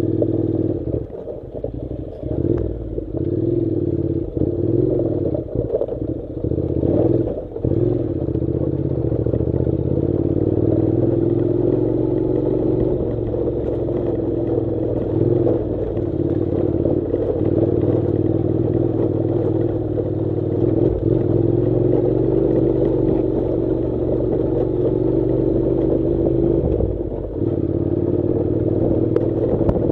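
Honda NC700's parallel-twin engine running as the motorcycle rides over a rocky gravel track, with loose stones clattering under the tyres. The engine note is uneven, with brief dips, for about the first eight seconds, then holds steady.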